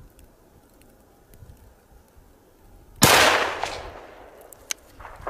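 A single rifle shot about three seconds in: one sharp, loud crack that dies away over about a second, after a faint, quiet outdoor background.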